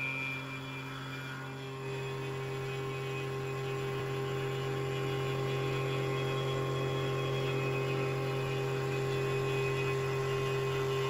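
CNC vertical mill cutting steel: an end mill machines the end of a rectangular steel tube, giving a steady hum with a higher whine that steps up a little about two seconds in.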